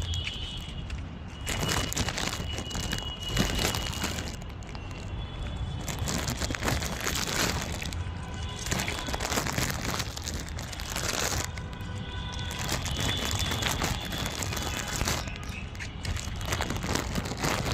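Puppies eating: a dense run of small smacking, chewing and crunching noises.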